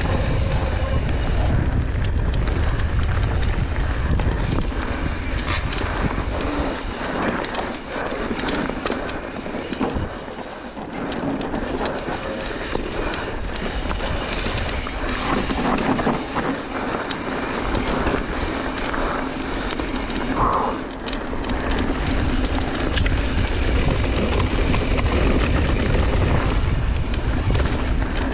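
Wind rushing and buffeting over the camera microphone as a mountain bike descends a dirt trail at speed. Under it are the rolling of the tyres and scattered clicks and knocks of the bike rattling over the rough ground.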